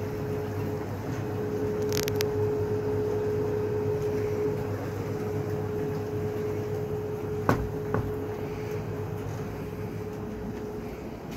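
A steady mechanical hum with a constant tone, broken by a couple of sharp clicks about two seconds in and another pair around the three-quarter mark.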